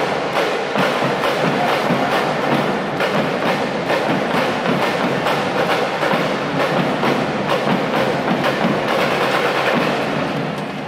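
Drumline playing a fast, steady percussion rhythm of sharp, evenly repeated strikes, dropping off near the end.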